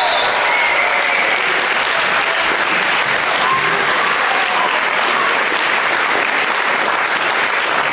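Theatre audience applauding, loud and steady throughout.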